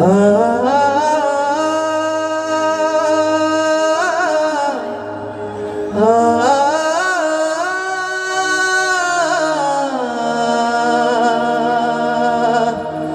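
A voice singing a Santhali song in long, slowly bending held notes, in three phrases with short breaks about 5 and 10 seconds in, over a faint low steady drone.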